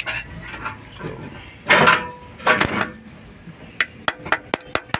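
Hand tools clinking and tapping on metal engine parts, with a quick run of sharp clicks in the second half.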